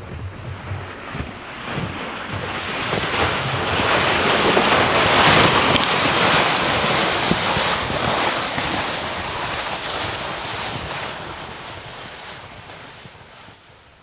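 Wind rushing, building to its loudest a few seconds in and then slowly dying away.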